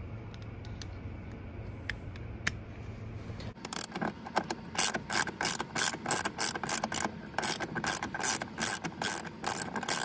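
Hand socket ratchet clicking in quick, even strokes, about three a second, starting about three and a half seconds in, as it undoes a bolt on a seatbelt retractor. Before that, a few light clicks of the socket being fitted.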